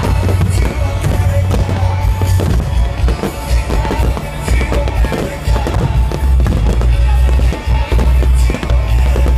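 Fireworks going off in a rapid, dense run of bangs and crackles over loud music with a heavy, steady bass.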